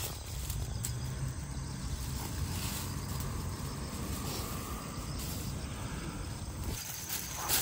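A steady low rumble that cuts off near the end.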